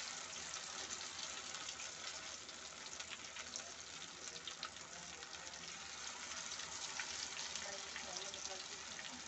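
Rice-flour-battered fish pieces sizzling in hot mustard oil: a steady crackling hiss.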